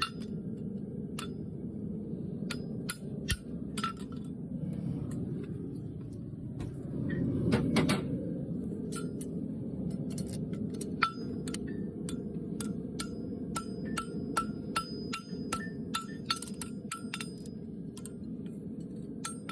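Hammer striking hot steel on an anvil while a farrier forges a shoe: many sharp ringing strikes, with runs of steady blows about two a second in the second half. A steady low rumble lies underneath, and a louder rushing surge comes about seven seconds in.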